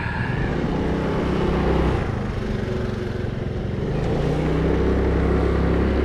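A vehicle engine running while driving, a steady low hum with road noise, getting a little louder about four seconds in.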